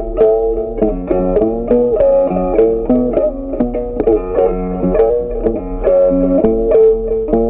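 Background music: a plucked-string instrumental, guitar-like, playing a quick run of notes at a steady pace.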